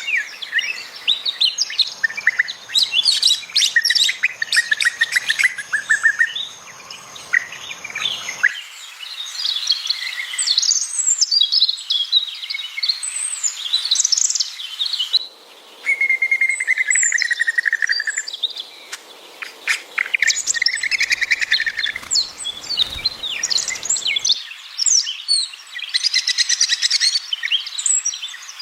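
Small songbirds chirping, many short high calls overlapping, with a drawn-out trilling call about halfway through. The background changes abruptly a few times, as at edits.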